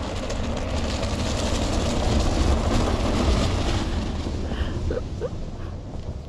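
A vehicle driving up a freshly laid, uncompacted gravel driveway: tyres crunching and throwing loose gravel over a low engine rumble, swelling as it passes and easing off near the end.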